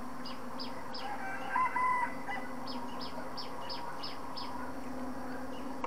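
A rooster crowing once, about a second in, over a steady insect drone, with short high chirps repeating a few times a second.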